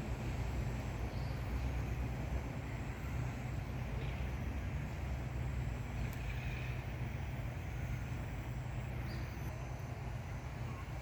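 Steady low outdoor rumble with a hiss above it, and a few faint, thin, high chirps now and then.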